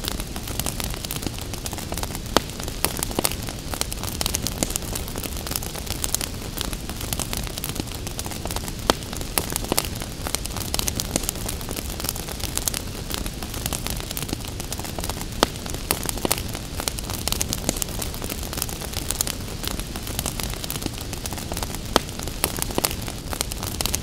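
Wood fire crackling, with sharp pops scattered irregularly over a steady low rush of the flames.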